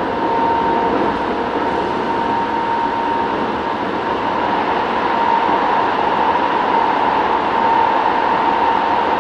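Kobe City Subway 1000 series train with a Hitachi GTO inverter running at speed between stations, heard from on board: a steady rush and rumble of wheels on rail with a steady high whine, getting a little louder in the second half.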